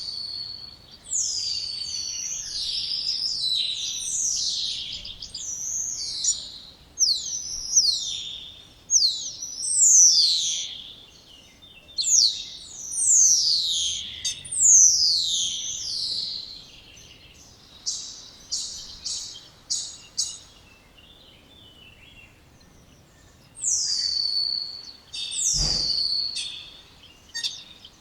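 Spotless starling singing: a run of loud, high whistles that slide downward, roughly one a second, with a stretch of shorter, faster notes in the middle. Near the end comes a brief low thump.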